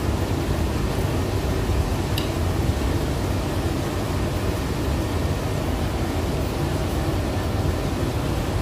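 Steady low rumbling background noise, even throughout, with one faint short click about two seconds in.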